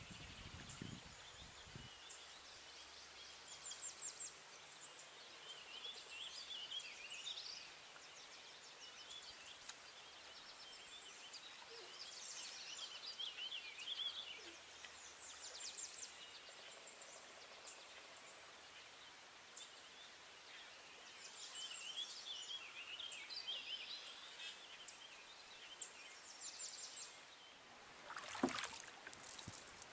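Songbirds singing along a wooded riverbank in short repeated phrases of quick chirps and trills, a few seconds apart, over a faint outdoor hiss. A single sharp knock comes near the end.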